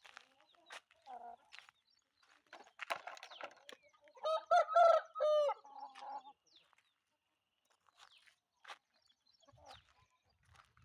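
A rooster crowing once, about four seconds in, for roughly a second and a half, amid fainter scattered clucks and rustling.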